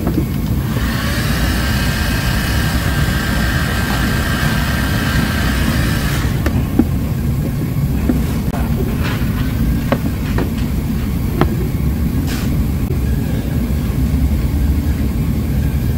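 Electric heat gun blowing steadily, its fan giving a loud low rushing noise while it warms a plastic car bumper. A high whining tone sits over it for about five seconds early on, and a few light clicks follow.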